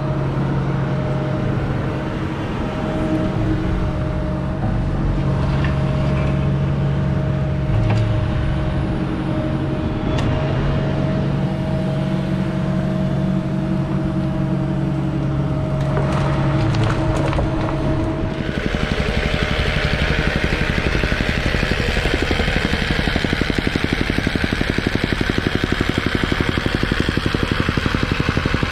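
A mini excavator's engine running steadily while the excavator backfills. About two-thirds of the way through, a fast, even pounding takes over, which fits a jumping jack rammer compacting the backfill.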